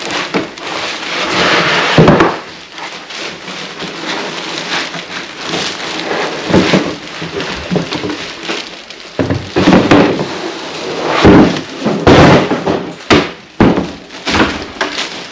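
Thin plastic bag wrapping a heavy inverter crinkling and rustling as it is handled, with cardboard and foam packing rubbing, and several sharp thumps as the unit is lifted out of its box and set down on a stone countertop.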